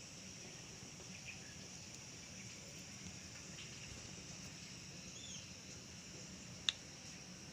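Faint, steady high-pitched background hiss, with a short rising-and-falling chirp about five seconds in and a single sharp click near the end.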